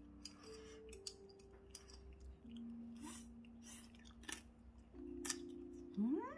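Close-up chewing and lip-smacking of a bite of gwamegi, a string of short wet clicks, over faint background music of held notes. Just before the end a loud, drawn-out rising pitched call begins.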